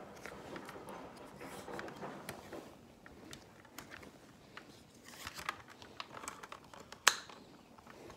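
Plastic handling noises from a Nerf foam-dart blaster as darts are pushed into it to reload: light rustling and small ticks, with one sharp click about seven seconds in.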